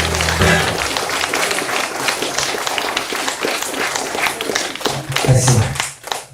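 An acoustic guitar's final chord rings out and stops within the first second, then a small audience applauds, with voices in among the clapping near the end.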